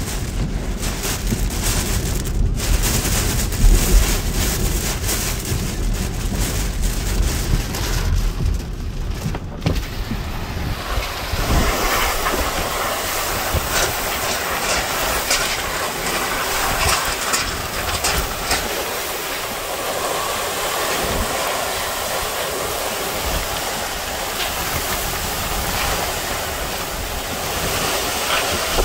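Hurricane-force wind and wind-driven rain in a hurricane's eyewall, a loud continuous rushing noise. For about the first ten seconds there is a heavy low rumble of gusts buffeting, after which it turns into a more even, higher hiss of wind and rain.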